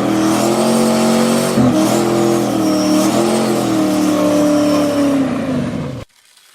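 Turbocharged Toyota 1UZ V8 engine held at high revs, its pitch dipping briefly and recovering a couple of times, then cutting off suddenly near the end.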